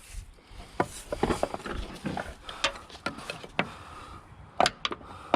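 Scattered clicks, taps and knocks of hand tools and loosened metal parts being handled while bolts are taken out of a van's front end.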